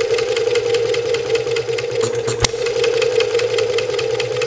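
Model hit-and-miss engine running on a vapor carburetor: a fast, even clicking over a steady hum as it coasts, with a single sharp bang about halfway through as it fires.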